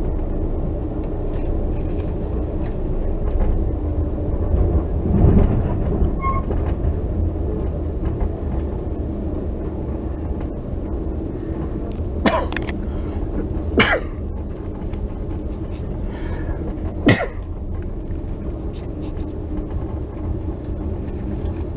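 Steady low rumble of a commuter train running, heard from inside a passenger car, swelling louder about five seconds in. Three short, sharp sounds stand out over it between about twelve and seventeen seconds in.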